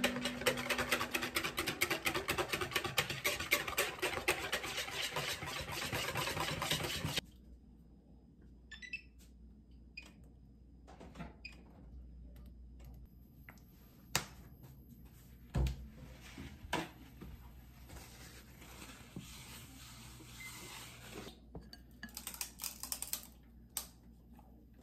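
A silicone spatula beating egg whites into meringue by hand in a ceramic bowl: a fast, steady run of taps and clicks against the bowl that stops abruptly about seven seconds in. After that come quieter kitchen handling sounds: scattered knocks, one low thump in the middle, and another short burst of quick taps near the end.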